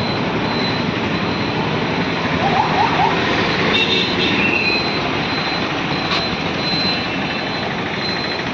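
Steady roadside traffic noise, with a faint high beep repeating on and off and a few brief chirps and a click.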